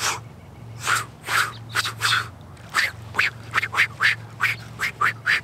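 A rapid run of short whooshing swishes, about fifteen in five seconds, each one marking a straight line swept through the air, over a faint steady low hum.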